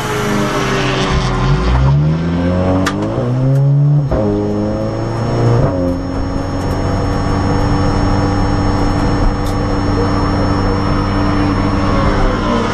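Audi S3 race car's turbocharged four-cylinder engine heard from inside the cockpit, accelerating hard with the pitch climbing through two upshifts about four and six seconds in. It then holds a steady drone at constant speed.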